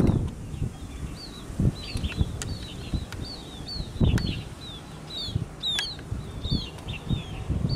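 Small birds chirping nearby, a stream of short falling chirps, two or three a second, over irregular low rumbles, the strongest about four seconds in.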